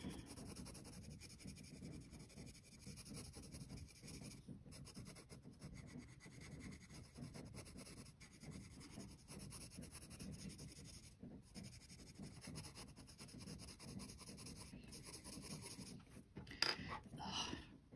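Faint graphite pencil shading on sketchbook paper, a soft steady scratching of the lead over the page. Near the end come a couple of short, louder sounds as the pencil is lifted away.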